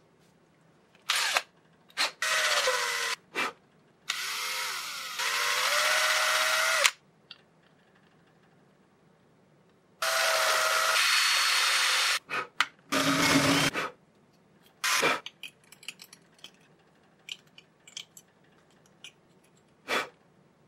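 Small electric drill running in several bursts of one to three seconds, its pitch dipping and wavering as the bit bites, boring holes in a 3D-printed plastic part. Short clicks and taps between and after the bursts.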